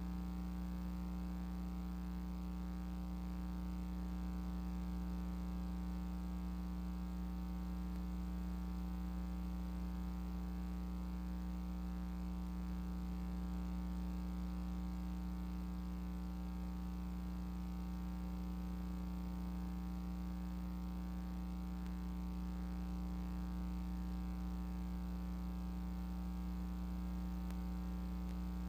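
Steady electrical mains hum and buzz on the audio line, a low hum with a stack of buzzy overtones that does not change.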